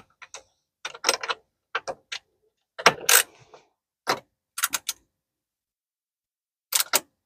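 Irregular sharp metallic clicks and clacks of door lock hardware being handled and adjusted, with a longer clatter about three seconds in and a pause of over a second before a last pair of clicks.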